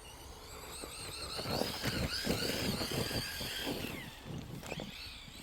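Electric RC truck's motor whining, its pitch rising and falling as the throttle is worked, with the tyres churning through snow. The sound is loudest in the middle and fades near the end as the truck moves away.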